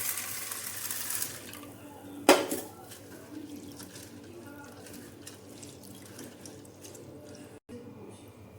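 Kitchen sounds: water runs from a tap with a hiss and stops about a second in. A moment later a metal utensil or pot strikes hard with one loud clank and a short ring, followed by light clatter of dishes.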